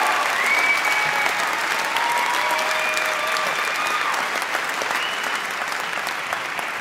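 A crowd applauding, with a few long, high held calls rising over the clapping, gradually dying down.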